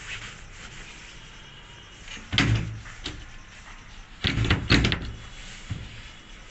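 A few sharp knocks and clatters of hard objects, like a door or panel being banged. A cluster comes about two and a half seconds in, and a louder run of several knocks follows about four and a half seconds in.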